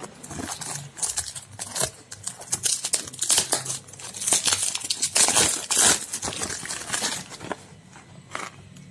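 Paperboard carton being handled and opened by hand: dense crinkling and rustling of card with quick clicks and scrapes, busiest in the middle and dying down near the end.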